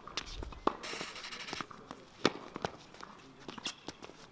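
Tennis rally on a hard court: sharp pops of the ball off the strings and its bounces on the court, with footsteps and a brief shoe scuff about a second in. The loudest pop comes a little past two seconds in.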